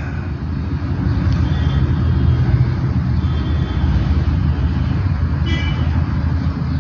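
Mercedes minibus engine idling with the vehicle at a standstill, a steady low rumble heard from inside the cabin.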